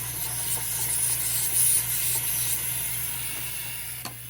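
Air hissing out of a pool cartridge filter's air relief valve as the tank's pressure is bled off after the pump is shut down. It is a steady hiss that eases slightly and cuts off about four seconds in.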